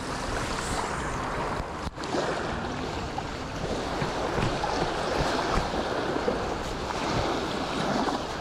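Waves washing on the shore with wind rushing over the microphone, a steady surf noise. It cuts out for a moment about two seconds in.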